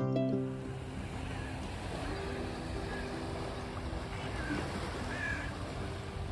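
Small waves lapping at the shore with wind noise on the microphone, and a few short bird calls scattered through. A guitar music track fades out in the first half second.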